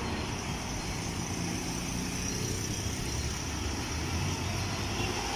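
Steady road-traffic noise from motorcycles and cars passing: a continuous hum with no distinct events.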